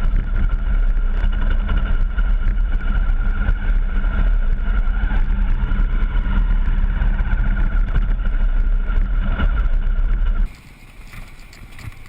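Honda CRF250M supermoto's single-cylinder 250 cc engine running steadily while being ridden, with wind buffeting the microphone. About ten seconds in, the sound cuts off abruptly to a much quieter background.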